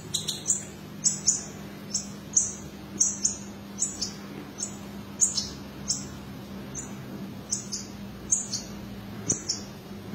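European goldfinches at a nest of chicks giving short, high chirps that fall in pitch, about two a second, stopping shortly before the end. A faint steady hum runs underneath.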